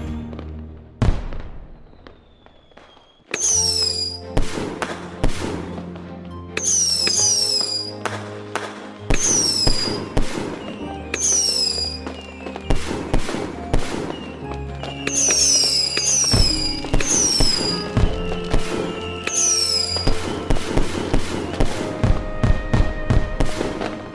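Fireworks going off in quick succession, many sharp bangs and crackles, with music of held notes and a steady bass under them. The bangs pause briefly about two seconds in, then resume.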